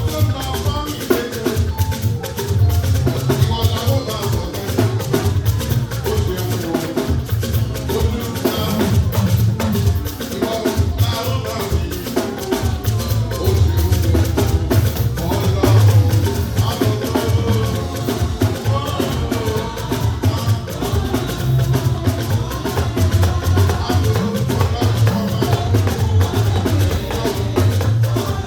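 Live band music with drums, shaker-type percussion and a heavy, pulsing bass line.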